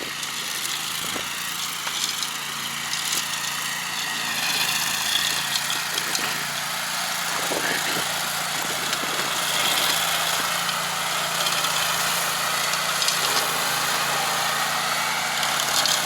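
Stump grinder's engine running steadily, getting gradually louder over the first few seconds, with a few scattered clicks.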